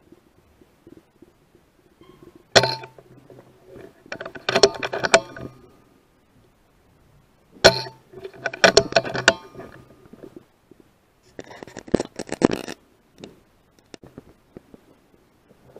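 Two sharp cracks from a sub-12 ft-lb .177 PCP air rifle (Brocock Bantam Sniper HR), about two and a half and seven and a half seconds in. Each crack is followed a second or two later by a rattle of metallic clicks as the cocking lever is worked to load the next pellet. Another run of clicking comes later.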